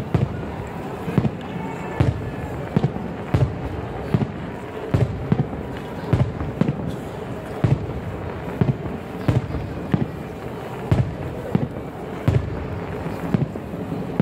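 Aerial firework shells bursting in quick, irregular succession, a sharp boom about once or twice a second. A large crowd's steady murmur runs underneath.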